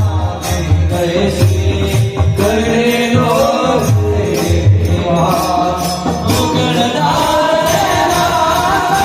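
A man singing a Marathi devotional song in a melismatic style, with rhythmic percussion accompaniment.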